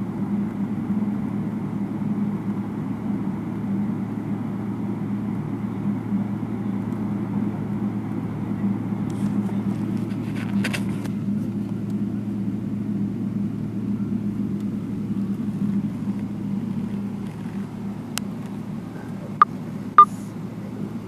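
Airliner's jet engines running steadily at taxi power, heard from inside the passenger cabin as a low, even rumble with a hum. A brief crackle about halfway and a few sharp clicks near the end.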